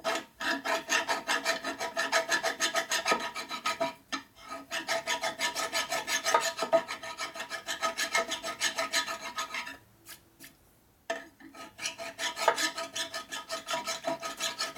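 Hand file stroked back and forth across a bushing on a Harley-Davidson Knucklehead engine, cutting down a high spot on its face: rapid rasping strokes with a metallic ring. The filing breaks off briefly about four seconds in and again for about a second around ten seconds in.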